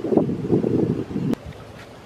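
Wind rumbling on the microphone, cutting off abruptly a little over a second in and leaving a much quieter outdoor background with a few faint ticks.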